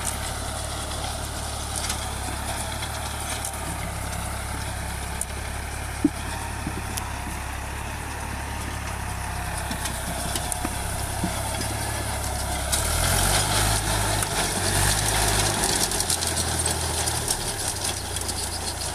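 Tractor engine running steadily while it pulls a potato digger lifting potatoes from the soil. The engine and the clatter of the digger grow louder for a few seconds, about two-thirds of the way through. There is one sharp knock about six seconds in.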